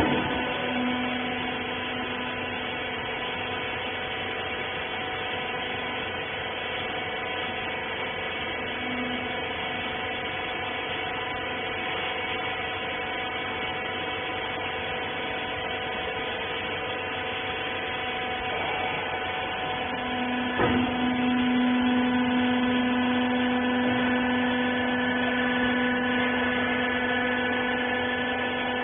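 Hydraulic power unit of a used-clothes baler running: a steady electric-motor and pump hum. About 20 seconds in there is a single clunk, and the hum is louder from then on.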